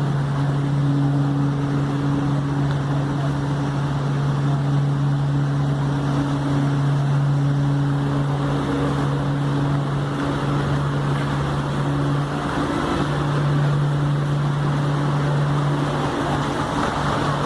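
Ferry's engines running with a steady low drone over a wash of wind and water noise, the hum dipping briefly about twelve seconds in.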